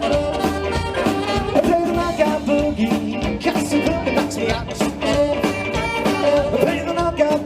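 Live rock and roll band playing, with guitar over a steady drum beat.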